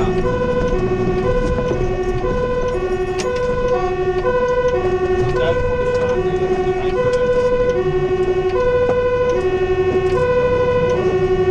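Fire engine's two-tone siren alternating evenly between a low and a high note, heard from inside the cab, with the truck's engine rumbling underneath: the hi-lo warning signal of an emergency run.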